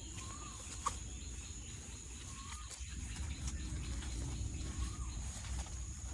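Outdoor farm ambience: a bird repeats a short rising-and-falling call about every two and a half seconds, over a steady high-pitched hum and a low rumble, with a single click about a second in.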